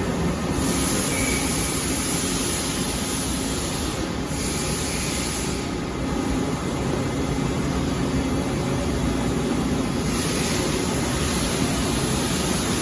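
Gantry robot and surrounding industrial machinery running: a steady mechanical din with a faint low hum, its high hiss swelling and easing every few seconds.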